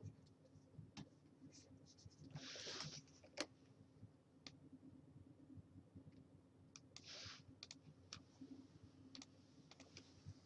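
Faint, scattered clicks of a computer keyboard, with two short hissy sounds about two and a half and seven seconds in, over a faint steady low hum.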